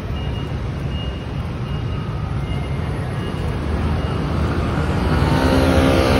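Steady rumble of city street traffic, with a vehicle engine growing louder over the last second or so as it comes close.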